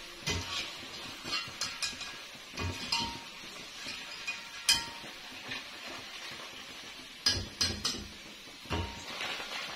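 A wire-mesh skimmer knocking and scraping against a wok in irregular metallic clinks as fried potato pakoras are lifted out, over a steady sizzle of hot frying oil.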